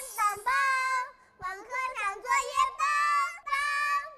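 A child's high voice singing a string of short held notes, with a brief pause a little over a second in.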